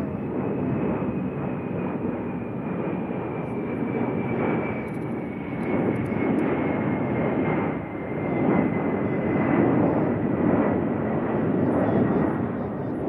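Airplane flying overhead: steady engine noise with a thin high whine that slowly falls in pitch, growing louder in the second half.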